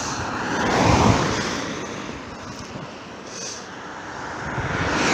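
Cars passing close by on a road: tyre and engine noise swells as one car goes by about a second in, fades, then rises again as another car approaches near the end.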